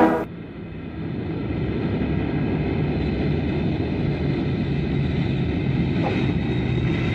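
Music cuts off abruptly at the very start, giving way to a steady low engine drone.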